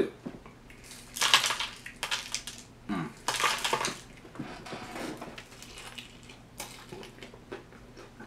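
Crinkling and crackling of takeout food packaging being handled, in two bursts about a second in and about three seconds in, with small clicks and knocks between them.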